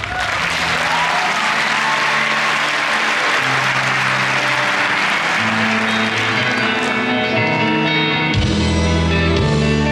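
Audience applause over the show's music, the clapping strongest in the first few seconds and dying away by about six seconds in. The music carries on, with a deep bass line coming in near the end.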